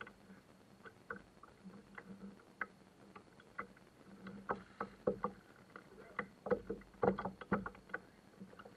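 Water lapping against a plastic sit-on-top kayak hull, with faint irregular small slaps and knocks that get busier about halfway through. A low whir comes and goes in short stretches as a baitcasting reel is cranked with the rod bent under load.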